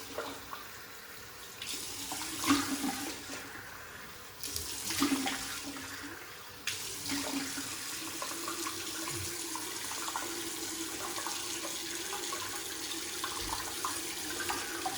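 Bathroom tap running into a sink while a face is washed, with uneven splashing early on. About seven seconds in the flow gets louder and then runs steadily.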